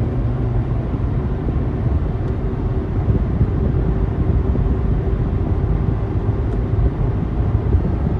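Steady road and engine rumble inside a moving car's cabin, with a faint steady hum that comes in about a second in and fades near the end.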